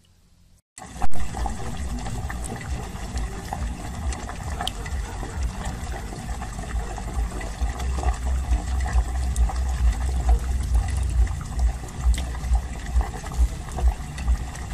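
Liquid running and gurgling. It starts abruptly with a knock about a second in, and a rhythmic pulse of about two a second builds near the end.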